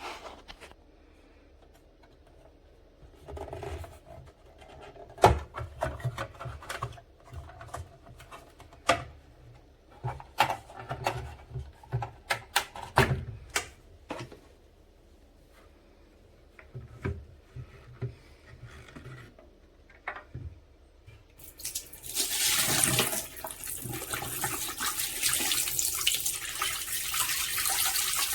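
A string of irregular clicks and knocks, then, from about two-thirds of the way in, water starts running with a loud steady hiss that carries on to the end.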